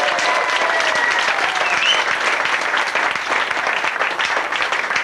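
Audience applauding steadily, with a few whistles and cheers over the clapping in the first two seconds.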